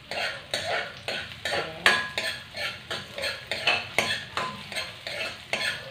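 A metal ladle stirring sliced onions in a frying pan, knocking and scraping against the pan about three times a second, some strokes leaving a brief metallic ring.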